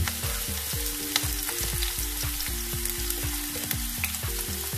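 Chopped onion sizzling as it fries in hot oil in a non-stick pan, a steady hiss with many small crackling pops.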